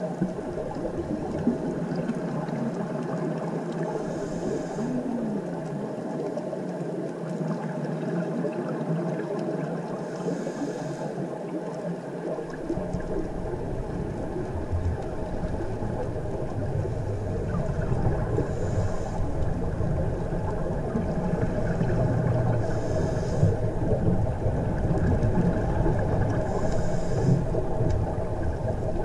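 Steady underwater rumble and hiss picked up by a camera in its waterproof housing. A brief burst of higher hiss comes every four to eight seconds, and a deeper rumble joins about twelve seconds in.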